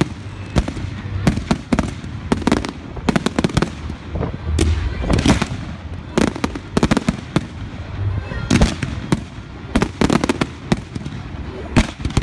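Fireworks display: a rapid, unbroken string of sharp bangs and crackles from bursting aerial shells, over a constant rushing hiss.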